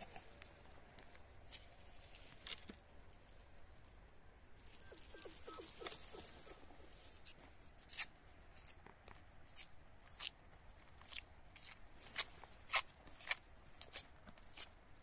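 Plastic cling film crinkling and crackling as its loose end is picked free from the roll, with a soft peeling hiss about five seconds in and a run of sharp, irregular crackles through the second half.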